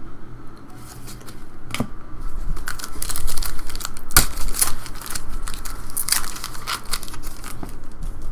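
A trading-card pack wrapper being torn open and crinkled, with a dense crackle and a couple of sharper snaps.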